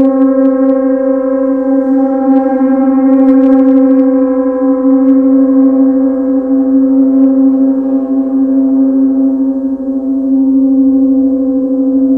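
Large tam-tam gong played continuously, sounding a loud, sustained drone: a deep hum with a ringing tone above it and a shimmer of higher overtones, swelling slightly a few seconds in. A few faint light ticks near the start and around three seconds in.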